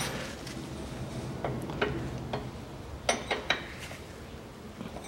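Open-end spanners clinking on a tie rod and its lock nut as the nut is run up and locked against the outer tie rod end. The clinks come as a few scattered metallic clicks, with a small cluster about three seconds in.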